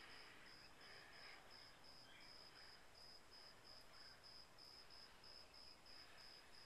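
Faint, steady chirping of a cricket: a high-pitched pulse repeating evenly about three to four times a second.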